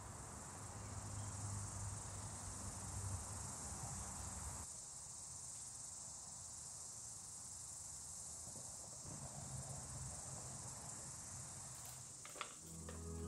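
Faint, steady chorus of crickets chirping, with a low hum underneath for the first few seconds.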